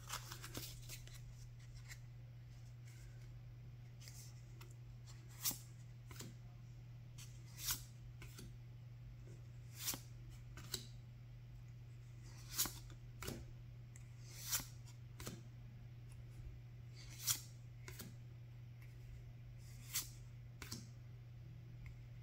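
Lord of the Rings TCG cards being slid one at a time off the front of a hand-held stack, each card making a short, sharp swish about every two to three seconds, over a steady low hum.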